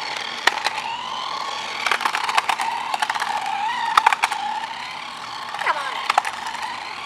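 Small electric motor of a remote-control toy whining at a fairly steady pitch, with sharp clicks and a rolling rattle of plastic wheels on concrete.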